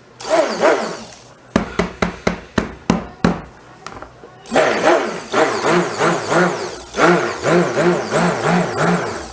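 Immersion stick blender in cold-process soap batter: a short burst, a string of quick knocks, then about five seconds of steady running whose pitch wavers rhythmically, about three times a second.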